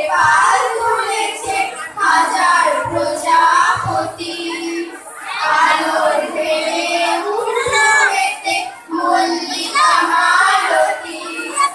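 Schoolgirls singing a song together into microphones, amplified through a PA, in phrases of a few seconds with short breaths between them.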